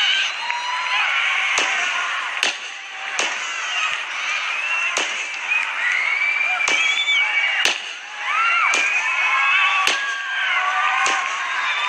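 A large concert crowd of fans screaming and shrieking, with about eight sharp, loud snaps at uneven intervals cutting through, timed to the moves of a robot dance.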